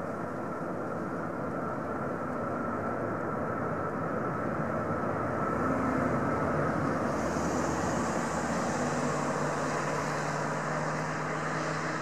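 Boeing 747-400's four jet engines running steadily as it rolls out on a wet runway after landing, with a high rushing hiss building about seven seconds in.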